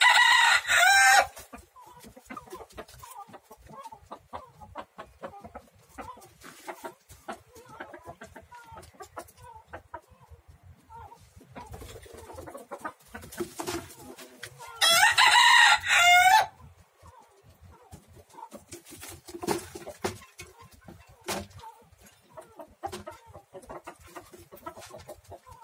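Roosters crowing: one crow ends about a second in and a second full crow comes about fifteen seconds in. Between them, soft clucking and scattered small clicks.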